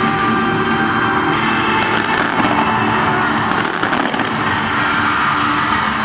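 Loud music from a show's sound system, mixed with a steady, dense crackle of fireworks.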